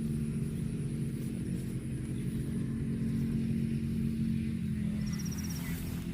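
A steady low motor hum, with a short high trill about five seconds in.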